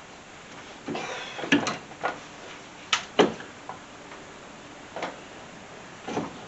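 A handful of irregular metal clanks and knocks as hand tools and suspension parts are handled during a front strut replacement, the loudest about a second and a half and three seconds in.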